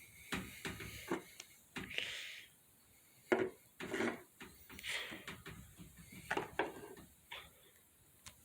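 Irregular knocks, taps and rubbing sounds of things being handled against a hard surface, with a few short hissy scrapes.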